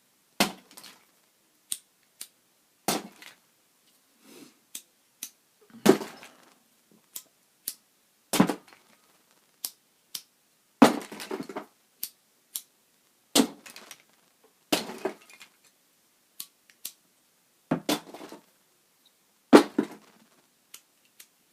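Disposable plastic lighters clicking and clattering as they are handled and sorted through in a box of lighters, a sharp click or short clatter every second or two.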